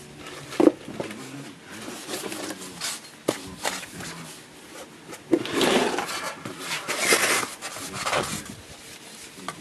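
Cloth wiping and rubbing over a motorcycle's aftermarket exhaust silencer, working penetrating lubricant over the metal, in irregular strokes that grow louder in the second half, with a few light knocks as the silencer is handled.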